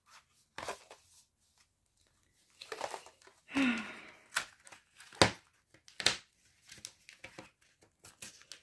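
Card-and-plastic blister pack of small batteries being torn open by hand: crinkling plastic and tearing card, broken by several sharp snapping clicks.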